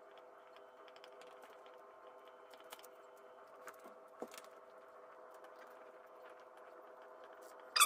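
Quiet kitchen with a faint steady hum, and a few soft taps as a kitchen knife tip presses into raw shortbread dough on baking paper.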